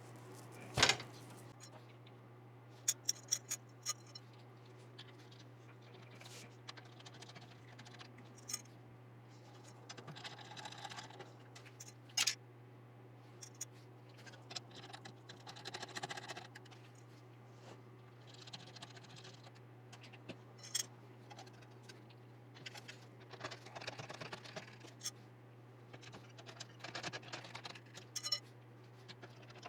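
Scattered small clicks, taps and scraping of computer parts being handled and fitted during a PC build, with a sharp click about a second in, over a steady low hum.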